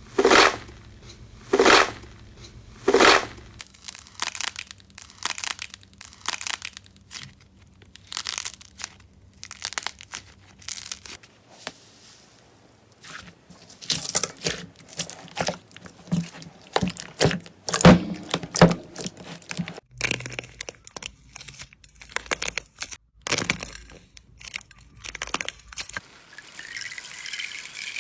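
Slime being squeezed and poked close to the microphone: a run of irregular crackles and pops, with three loud pops in the first three seconds. A steady hiss sets in near the end.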